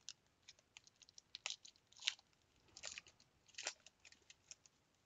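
Faint crinkling and crackling of a foil trading-card pack being torn open and the cards slid out: a scatter of short crackles, a few louder ones in the middle.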